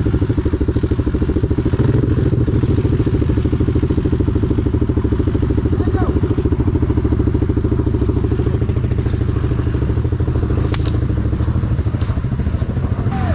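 Off-road vehicle engine running at steady high revs, a dense, even pulsing drone, with a couple of brief clicks near the end.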